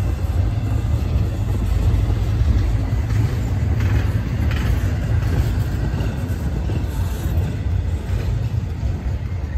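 Steady, loud low rumble, heaviest in the deep bass, with a few faint higher sounds about four to five seconds in.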